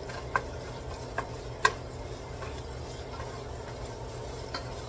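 Wooden spatula stirring chopped bacon in a nonstick pot, knocking against the pot in a few sharp taps, the loudest about a second and a half in, over a faint steady sizzle of the bacon starting to fry.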